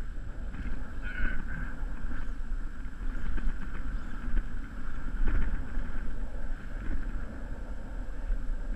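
Strong wind buffeting the microphone: a low, gusting rumble that swells about five seconds in.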